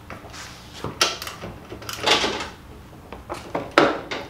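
A 3/4-inch wrench tightening a steel armrest bolt on a zero-turn mower: irregular short clicks and scraping rasps of tool on bolt. The longest rasp comes about two seconds in, and a quick cluster of clicks follows near the end.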